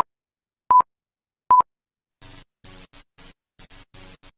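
Three short single-pitch beeps, evenly spaced about 0.8 s apart, like a heart monitor's beat tone, then from about two seconds in a run of short, choppy electronic music bursts.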